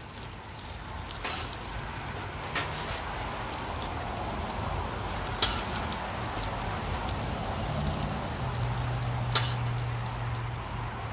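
Steady sizzling hiss of hot dogs cooking on a Blackstone flat-top griddle, with a few sharp clicks of a metal spoon.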